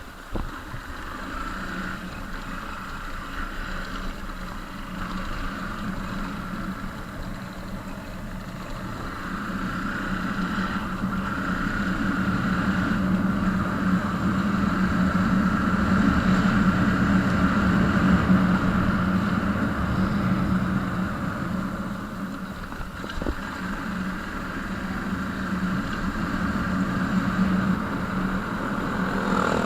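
A vehicle engine running steadily on the move, with a rushing of wind and road noise. It grows louder toward the middle and then eases off a little.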